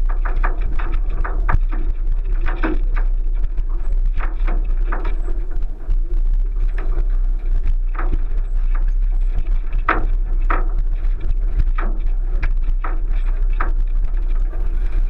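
1999 Subaru Forester's flat-four engine running under a steady low rumble while the car drives over a rough, rutted dirt track. Frequent irregular knocks and clatters come from the body and suspension.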